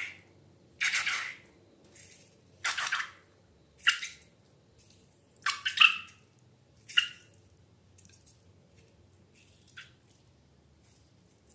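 Slime being squeezed and handled: a series of short wet squelches, about one a second, growing fainter and sparser after about seven seconds.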